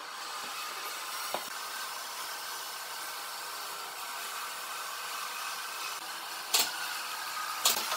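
A steady hiss with a faint hum, and near the end two sharp clicks from a thin wooden stick striking the side of a plastic cup as it stirs mixed two-part epoxy resin.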